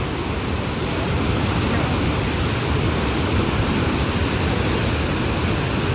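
Steady rushing roar of a waterfall, a loud, even wash of falling water.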